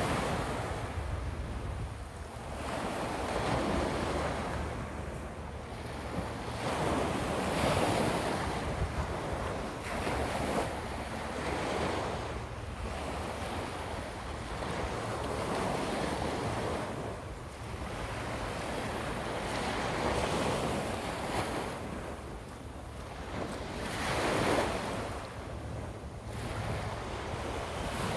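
Small waves breaking and washing up a sandy beach, each surge swelling and fading every few seconds, with wind rumbling on the microphone.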